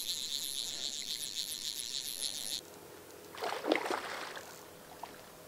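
Fly reel's click drag buzzing as the spool spins on a hooked trout, cutting off suddenly about two and a half seconds in; then a short splash of water.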